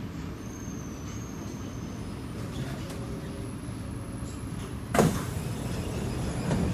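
Low steady hum inside a Kawasaki C751B train car, then a sudden loud whoosh about five seconds in as its sliding doors open, with a smaller thump near the end.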